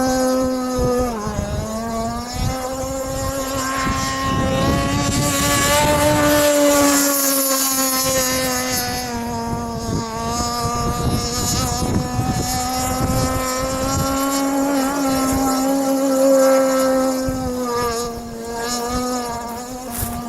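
Gas-powered radio-controlled model boat's small two-stroke engine running at high speed with a high, steady buzz, its pitch dipping briefly a few times as the throttle or load changes. Wind buffets the microphone.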